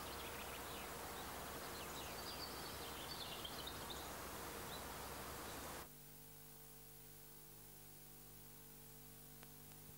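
Open-air background noise with a few faint bird chirps about two to four seconds in. It cuts off suddenly about six seconds in, leaving near silence with a faint steady hum.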